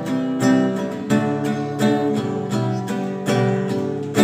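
Acoustic guitar strummed in an even rhythm of chords, about three strokes a second.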